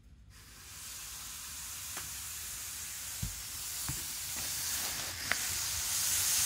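Micro Ace N-gauge model train of the 783 series running along sectional track toward the microphone: a steady hissing whir from its motor and wheels that grows louder as it approaches, with a few light clicks.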